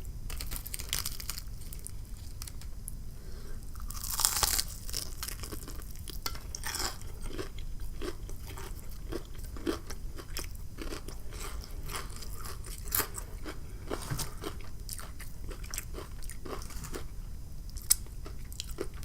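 Close-miked chewing and crunching of crispy fried chicken wings, with a louder crunchy bite about four seconds in and irregular small crackles throughout.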